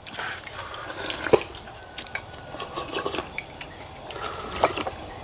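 Eating utensils clinking, tapping and scraping against small rice bowls of pho as several people eat fast, with one sharper clink about a second in.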